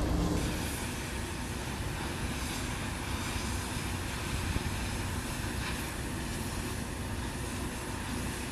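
Cutting torch burning through a steel bridge beam: a steady hissing roar. A machine hum with a steady tone ends about half a second in.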